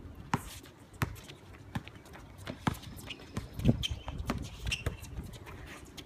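Basketball bouncing on a hard court as it is dribbled, with players' footsteps: irregular thumps, the loudest about three and a half seconds in.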